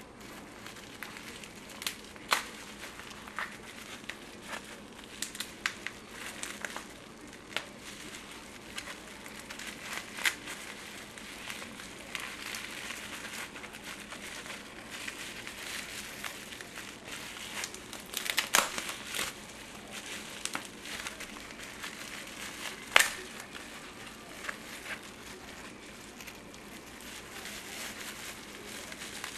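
Bubble wrap crinkling and rustling as it is handled and unwrapped, with scattered sharp clicks and snaps. The loudest snaps come about 18 and 23 seconds in.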